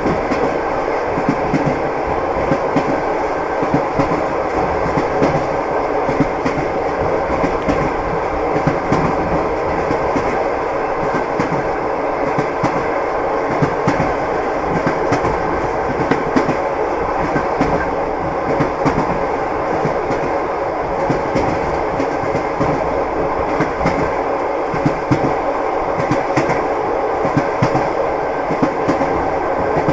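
Train wheels running over the rails: a steady rumble with a continual stream of short, irregular clacks and knocks.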